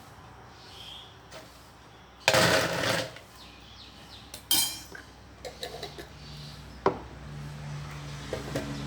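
Spoon and kitchen containers clattering as ground salt is spooned into a drink: a rattling scrape a couple of seconds in, then a ringing clink about halfway and a sharp tap near the end, with a low hum coming in during the second half.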